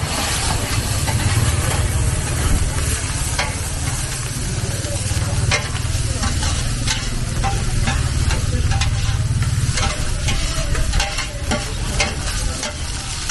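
Food sizzling in a large, wide wok while two long-handled steel spatulas stir and scrape through it, with frequent sharp clinks of metal on metal. A steady low rumble runs beneath and eases near the end.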